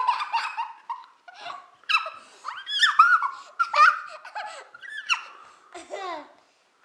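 A young child laughing in a string of high-pitched bursts.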